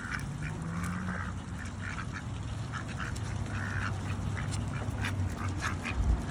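Ducks quacking in short calls while pecking at food on the ground, with many small sharp clicks throughout, over a low steady hum.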